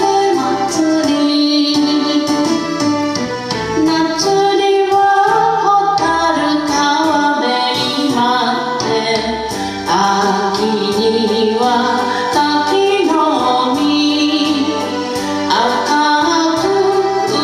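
A woman singing a Japanese song, a cheer song for a local railway, over a karaoke backing track.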